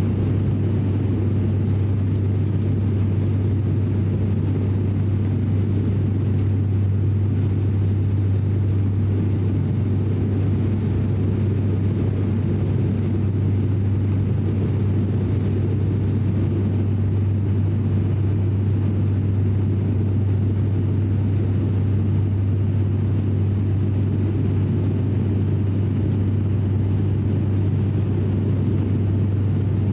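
Steady cabin drone of an ATR 72's Pratt & Whitney PW127 turboprops in flight shortly after takeoff. A strong low propeller hum dominates, over a rough rumble and a faint high whine.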